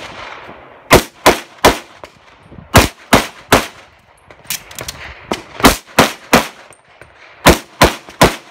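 Open Division competition pistol firing rapid shots in quick strings of about three, with short pauses between strings while the shooter moves to the next targets.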